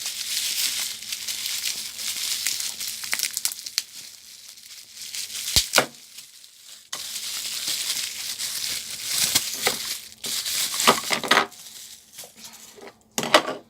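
Plastic packaging crinkling and rustling as a small soldering station is unwrapped by hand, with scattered clicks and a single sharp knock about five and a half seconds in.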